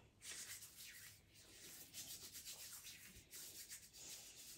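Hands rubbing together, working a few drops of oil blend into the skin: faint, repeated soft swishing strokes starting about a quarter second in.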